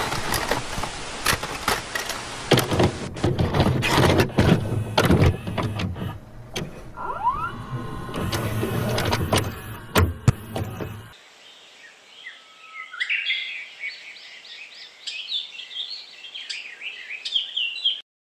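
A VCR loading and playing a VHS tape: clunks and clicks over loud hiss for about eleven seconds, then a sudden cut to birds chirping repeatedly over quiet background noise.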